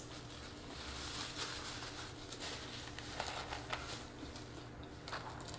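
Soft rustling and crumpling of paper napkins and paper food wrappers, with a few small clicks from handling the food.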